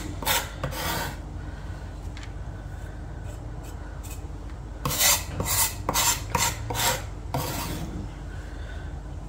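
Large kitchen knife chopping and scraping finely chopped coriander and green chillies on a wooden chopping board. There are three quick strokes at the start, a quieter pause, then a run of about seven strokes roughly every half second between about five and seven and a half seconds in.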